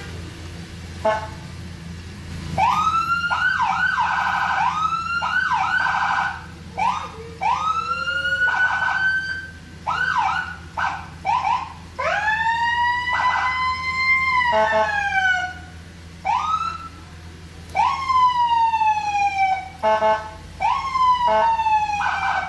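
Whelen ULF 44 electronic vehicle siren run through its tones. Quick rising whoops give way to longer rises that hold a steady pitch, then falling sweeps, with short buzzing horn blasts in between. A steady low hum runs underneath.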